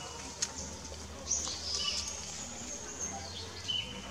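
Several short, high-pitched animal chirps and squeaks, one drawn out for about half a second in the middle, over a faint steady low hum.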